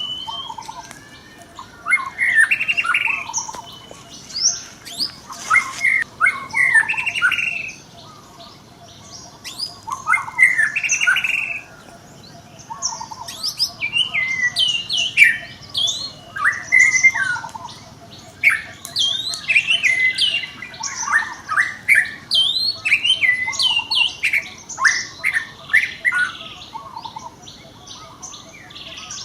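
Monkeys giving repeated short, high-pitched squealing calls in bouts of several calls, with brief pauses between bouts.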